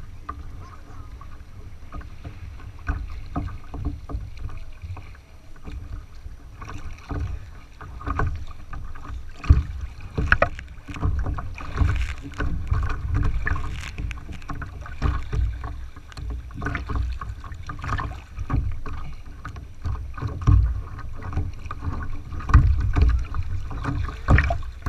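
Lake water lapping and splashing against a plastic paddleboard's hull as it moves, heard as irregular slaps and splashes close to the microphone, over a constant low wind rumble on the microphone.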